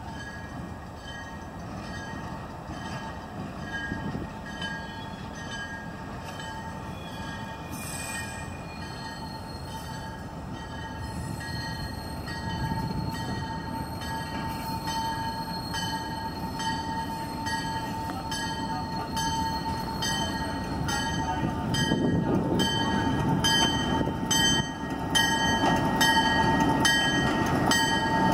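Diesel locomotive approaching at low speed, its engine rumble growing steadily louder, over a steady high ringing tone with a regular beat.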